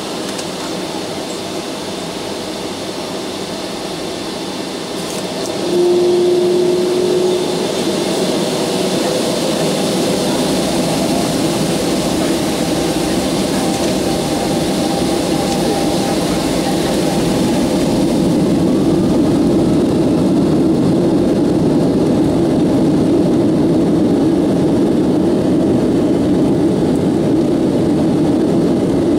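Cabin noise of a Boeing 757-200 taxiing onto the runway, its jet engines running steadily. About six seconds in the sound jumps louder and a short steady tone is heard. From about eighteen seconds in a deeper, louder engine sound builds and holds as the plane lines up for takeoff.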